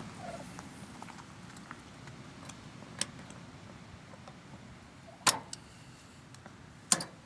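A few sharp metallic clicks and taps of hand tools against the mower wheel's axle pin and cap, the loudest about five seconds in.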